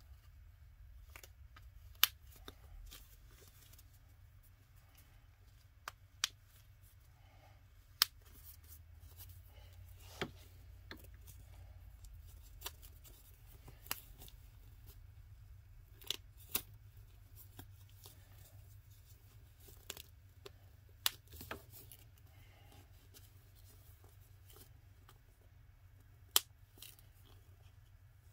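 A cloth diaper being fastened onto a vinyl reborn doll: about a dozen sharp, separate clicks at irregular intervals, with faint handling rustle between them.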